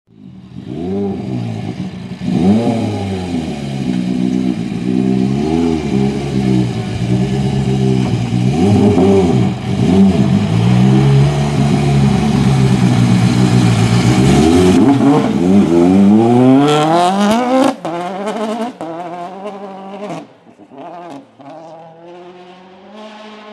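Toyota Yaris WRC rally car's 1.6-litre turbocharged four-cylinder engine revving up and down again and again, then accelerating hard with the pitch climbing steeply about fifteen seconds in. After that the sound drops away and grows fainter.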